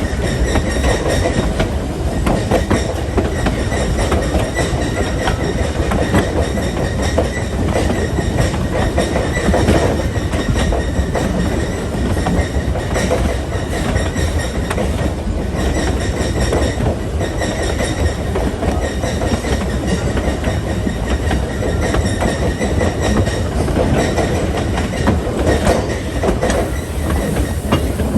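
Narrow-gauge passenger coach riding along the track: steady rumble of wheels and running gear with rapid clicks and rattles, and a faint steady high-pitched squeal under it.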